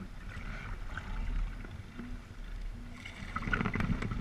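Water splashing and lapping as kayak paddles dip and stroke, with low wind rumble on the microphone; the splashing gets busier in the last second or so.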